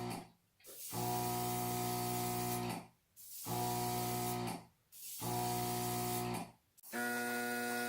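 Small paint compressor humming steadily with the hiss of spray as the roof of a diecast model is painted, in four spells that stop and start abruptly.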